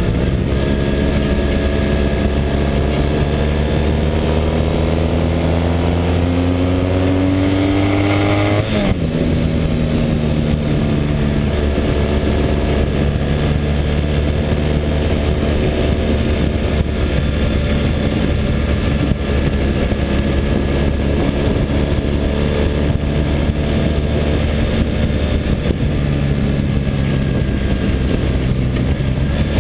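Triumph parallel-twin motorcycle engine heard from a camera on the bike. Its pitch rises steadily for about eight seconds as the bike accelerates, drops abruptly about nine seconds in, then holds a steady cruising note. An even rush of wind and road noise runs underneath.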